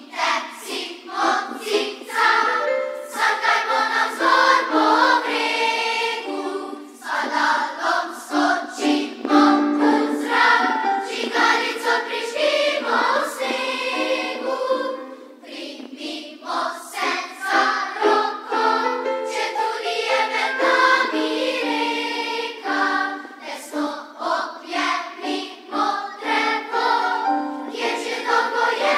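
Large children's and youth choir singing a song in Slovenian.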